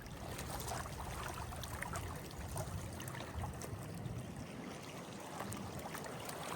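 Water trickling and lapping, with a low wind rumble on the microphone and small scattered ticks.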